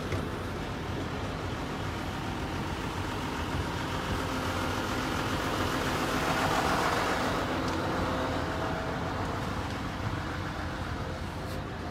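A vehicle engine running steadily nearby, swelling louder about six to seven seconds in.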